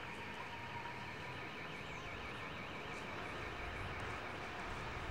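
Outdoor ambience: a faint high-pitched warbling tone, wavering several times a second, fades out about four seconds in, over a low steady rumble.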